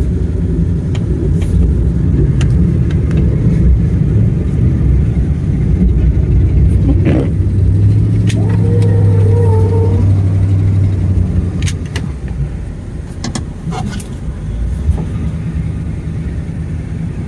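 Plow truck's engine running while plowing snow, with a steadier hum for a few seconds around the middle and scattered clicks.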